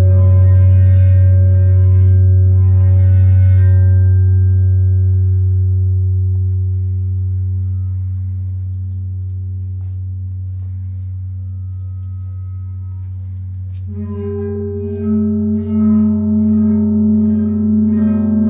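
Music: a steady low drone under held ringing tones that slowly fade, then a new passage of plucked-string notes comes in about two thirds of the way through.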